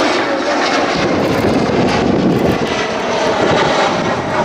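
Jet aircraft engines running, a loud, steady rushing noise that thickens about a second in.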